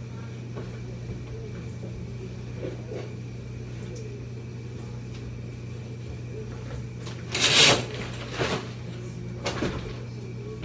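Handling noises during a transfer from a plastic shower chair: a few soft knocks and shuffles over a steady low hum, then a loud rustling, scraping burst about seven and a half seconds in, followed by two smaller ones.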